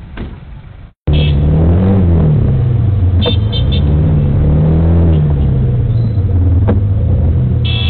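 A motor vehicle engine running loud and close in traffic, its pitch rising and falling as it revs up and down. It starts after a short break in the sound about a second in, and two brief knocks are heard over it.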